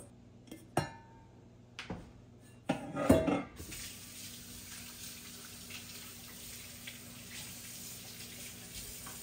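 Stainless steel dog bowls knocking and clinking on a countertop: a few light knocks, then a louder ringing clank about three seconds in. After it a steady low hiss runs on.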